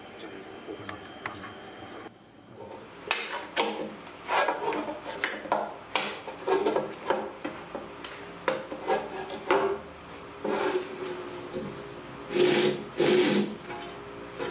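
Belt grinder running while a steel nakiri blade is pressed against the belt in about a dozen short rasping passes, grinding the knife's primary bevel. The last two passes, near the end, are the longest and loudest.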